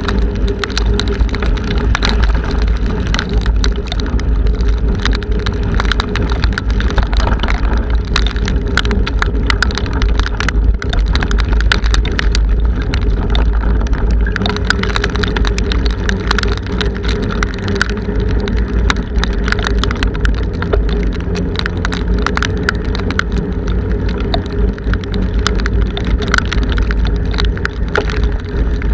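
Strong wind buffeting the microphone of a bike-mounted camera in a loud steady rumble, with rain striking the camera in many sharp ticks and a steady hum from the moving bicycle.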